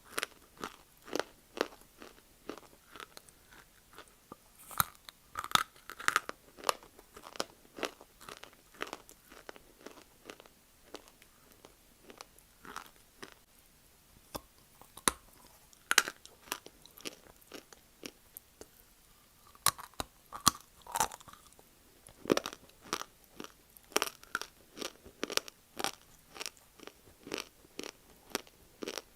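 Close-up crunching and chewing of dry multani mitti (fuller's earth clay), with sharp, irregular crunches a few times a second. Some stretches are louder and denser than others.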